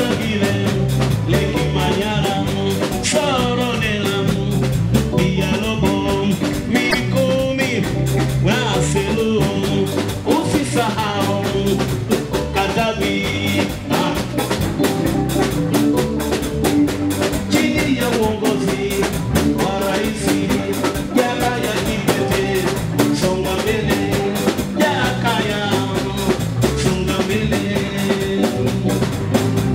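Live band playing: electric bass and drum kit keep a steady dance beat under electric guitar lines.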